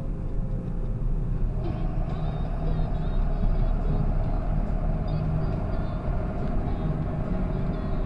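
John Deere 7530 tractor's six-cylinder diesel engine running steadily on the road, heard from inside the cab as a low drone. A higher whine joins in about one and a half seconds in and holds.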